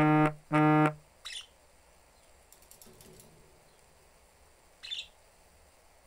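Two short, loud, low buzzing tones in quick succession at the start, like an electronic buzzer. Then budgies give two brief high chirps, one about a second in and one near the end.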